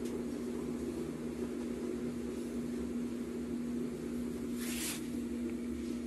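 Mabe washer-dryer tower's washer running in its spin cycle with a steady hum and rumble, the noise of bearings that water has got into and stripped of grease. A brief hiss about four and a half seconds in.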